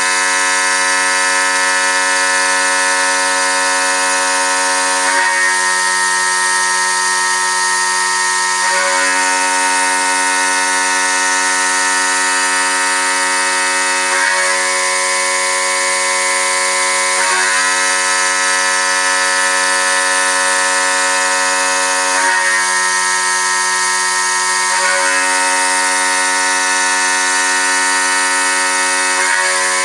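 5040 CNC router's spindle and cutter milling aluminium: a loud, steady whine of many tones over a cutting hiss, the set of tones shifting every few seconds as the tool changes direction.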